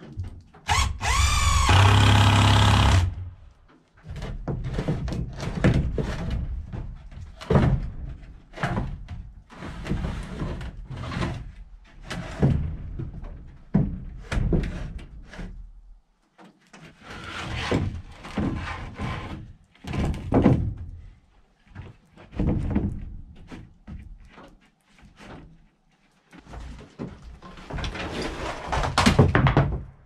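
Cordless drill running for about two and a half seconds near the start as it drives a screw up into a wooden roof rafter. Then a long run of irregular thunks and knocks as boards are handled and set onto the overhead shelf framing.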